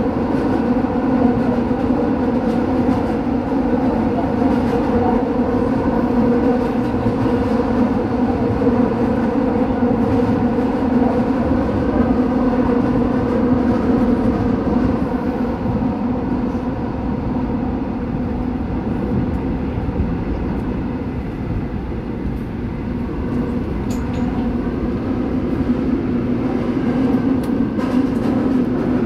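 Seoul Line 8 subway train running through a tunnel, heard from inside the car: a continuous rumble of wheels on rails with steady humming tones. It eases off a little about two-thirds of the way through, then builds again.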